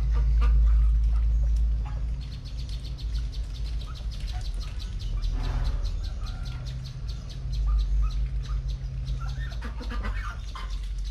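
Domestic ducks dabbling their bills in shallow muddy water: a long run of rapid fine clicks, with bird chirps.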